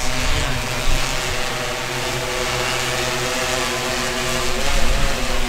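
Large multirotor disinfectant-spraying drone flying overhead, its propellers making a steady droning hum that wavers slightly in pitch near the end.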